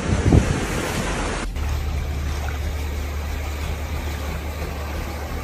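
Floodwater rushing along a flooded street, a steady noisy wash with a low rumble underneath. There is a brief low thump near the start, and the sound changes abruptly about a second and a half in.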